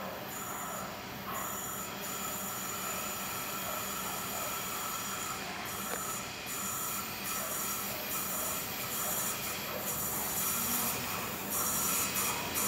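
A train running on the rails near the closed crossing, with high, wavering wheel or brake squeal that cuts in and out. It grows louder near the end as the train comes closer.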